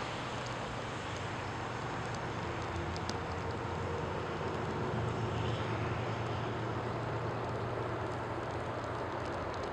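Steady, distant low engine rumble over a wide background noise, swelling slightly about halfway through.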